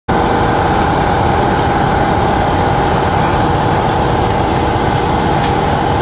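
Tractor-mounted forestry mulcher and its diesel engine running steadily, with a steady whine over the low engine rumble.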